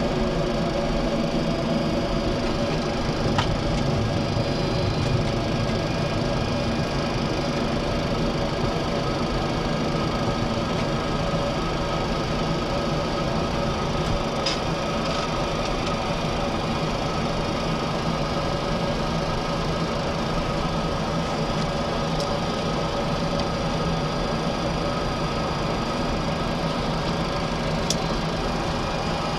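Steady flight-deck noise of a Boeing 737-400 taxiing with its CFM56 engines at idle: an even hum carrying several steady tones, with a few faint clicks.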